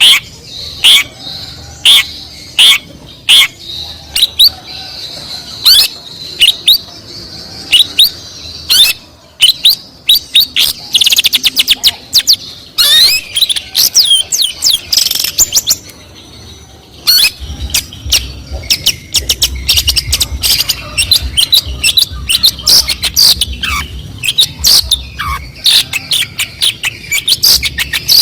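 Long-tailed shrike (cendet) singing loudly in a varied stream of sharp chips, squawky sweeps and fast trills, mixed with imitations of other birds such as sparrows, canaries and lovebirds. A low hum comes in about halfway through.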